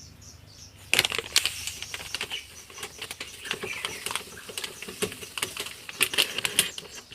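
Washing powder being poured from its packet into a top-load washing machine's detergent dispenser: irregular rustling crackles and small clicks of plastic packaging and granules, starting about a second in.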